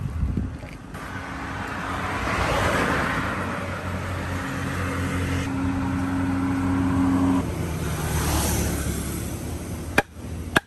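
A motor vehicle passing on the road: engine and tyre noise swell up over a few seconds, with a steady engine hum that cuts out about three-quarters of the way through, then fade. Two sharp knocks near the end.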